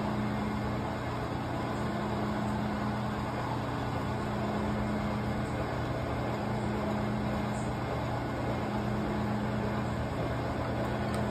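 Vertical milling machine running in slow gear while a roughing end mill cuts a notch in a metal bracket, the table hand-fed: a steady motor hum under an even cutting noise.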